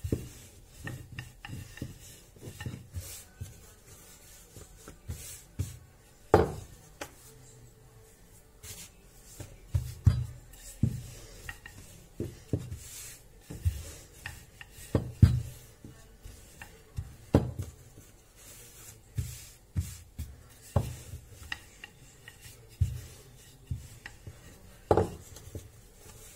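Long wooden rolling pin rolling piadina dough out on a floured wooden board: repeated back-and-forth rubbing strokes with soft low knocks as the pin sets down, and a few sharper knocks.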